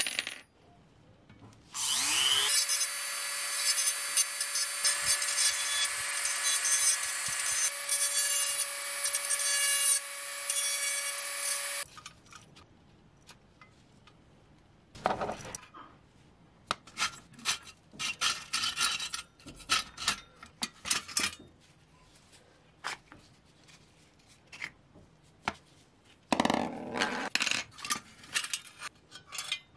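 A small high-speed power tool spins up with a rising whine and runs steadily at one high pitch for about ten seconds, working on the toy's wheel and axle, then stops. After it come scattered clicks and clinks of small metal parts being handled, with two short louder scraping bursts.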